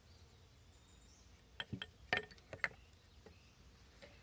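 A quick run of light clicks and taps, some with a short ring, as the drive wheel of a Scotch tension spinning wheel is fitted onto its wooden upright, over a faint outdoor background.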